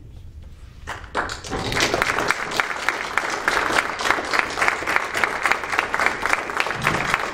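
A room of people applauding, breaking out about a second in and carrying on as dense, steady clapping.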